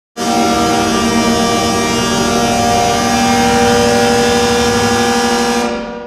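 Hershey Bears ice-hockey goal horn sounding one long, steady blast with several tones sounding together; it starts abruptly and dies away near the end.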